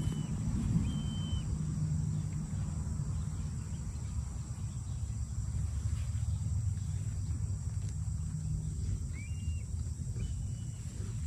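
A steady low rumble under a thin, high, steady insect drone, with a few short chirping bird calls about a second in and twice near the end.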